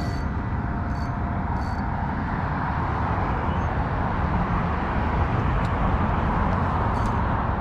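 Steady outdoor rushing noise with a heavy low rumble, and a few faint light clicks about one, five and a half and seven seconds in.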